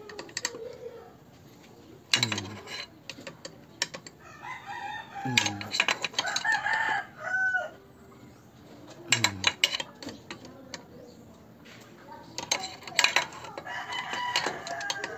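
A rooster crows once, from about four and a half to seven and a half seconds in. Around it a ratchet wrench clicks in short strokes, a few seconds apart, as the engine's bearing cap bolts are snugged down a little at a time.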